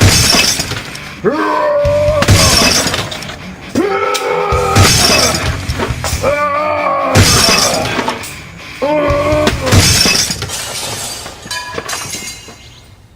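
A computer being smashed: loud crashes and shattering, repeating about every two and a half seconds over music, dying away near the end.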